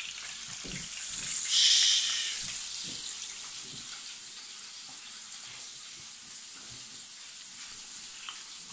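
Flour-dredged vobla (Caspian roach) frying in hot oil in a pan, a steady sizzle. About a second in, the sizzle flares loudly for roughly a second as another floured fish goes into the oil.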